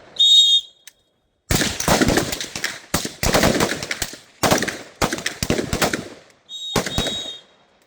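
Shot-timer beep, then a line of rifles firing overlapping rapid shots for about five seconds as several shooters each put two rounds to the body and one to the head. A second timer beep sounds near the end, marking the end of the 5-second time limit.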